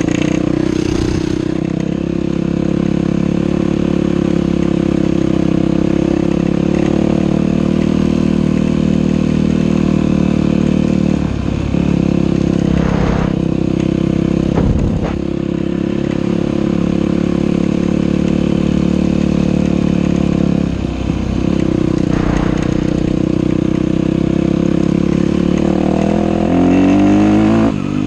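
Dirt bike engine running steadily under throttle, with a few brief dips in the engine note and a rising rev near the end.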